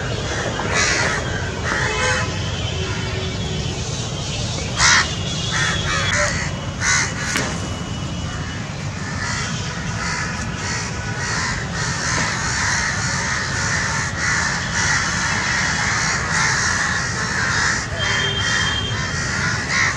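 A flock of house crows cawing, many harsh calls overlapping, with the loudest caws a little before five seconds and around seven seconds. A steady low rumble runs underneath.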